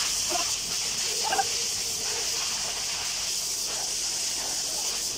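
Steady high-pitched hiss, like air or gas escaping under pressure. It sets in suddenly, with a few faint knocks in the first second and a half.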